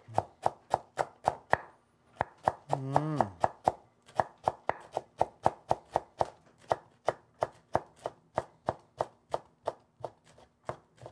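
Kitchen knives chopping rolled perilla leaves into thin strips on a wooden cutting board. The knife strikes come in a steady rhythm of about three a second.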